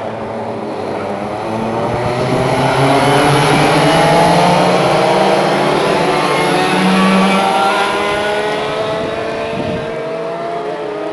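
Several racing karts' two-stroke engines running on track, their pitch climbing repeatedly as they accelerate out of the corners. The sound builds to its loudest about four seconds in as karts pass close, then slowly fades.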